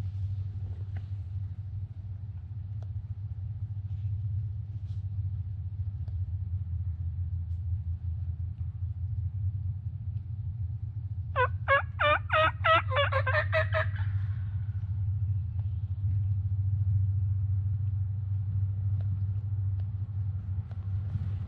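A wild Osceola turkey gobbling once, unprovoked: a rapid rattling run of about nine notes lasting some two and a half seconds, heard about halfway through over a steady low hum.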